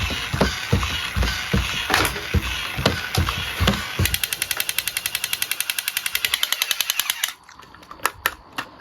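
Rapid clicking and rattling. It is dense and irregular at first, then settles into a steady fast run of about ten clicks a second. That run stops abruptly about seven seconds in, leaving a few scattered clicks.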